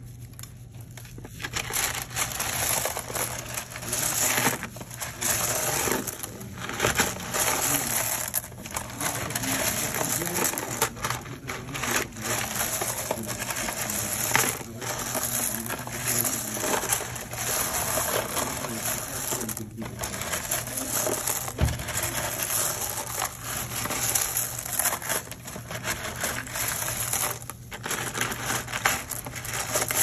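Broken ceramic tile pieces being stirred and sifted by hand, clinking and rattling against each other in a dense, continuous clatter with a few brief pauses.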